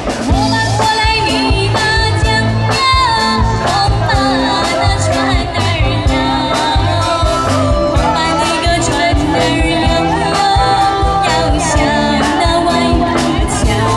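A woman sings a Chinese pop song into a microphone over a live band, with a drum kit keeping a steady beat, bass, and electric guitar.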